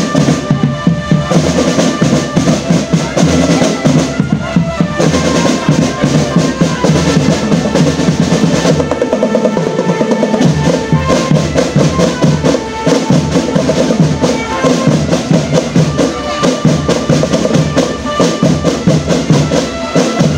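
Marching drum band playing: snare and bass drums beating a fast, steady rhythm, with a sustained melody line above the drums.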